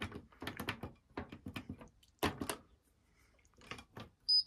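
Light clicks and knocks of a Hotpoint front-loading washing machine's door and fittings being handled, with a short high beep near the end.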